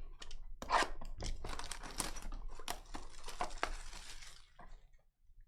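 Trading card pack wrapper being torn open and crinkled by hand: a run of crackling, tearing noise with sharp snaps, fading out near the end.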